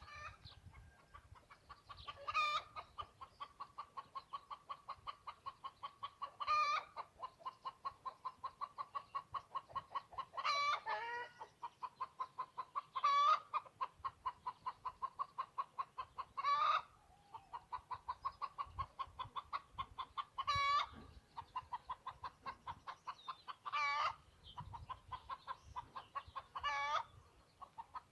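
A chicken clucking in a fast, steady run of short notes, about four to five a second, broken every three to four seconds by a louder, higher squawk.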